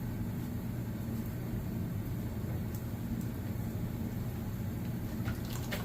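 Steady low machine hum with faint hiss, and a couple of faint clicks near the end.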